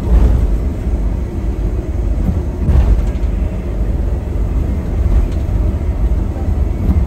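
Steady low rumble of a large vehicle's engine.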